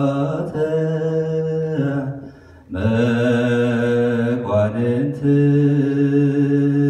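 Ethiopian Orthodox liturgical chant sung by men's voices: long held notes that step slowly up and down in pitch, with a short break for breath about two seconds in.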